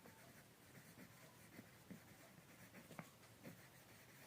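Faint scratching of a pen writing on paper, with scattered light strokes.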